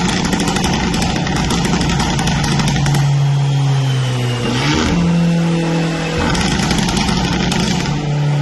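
Remapped Fiat Abarth's turbocharged 1.4-litre four-cylinder engine running and revving, its pitch shifting a few times with a brief rise about halfway through.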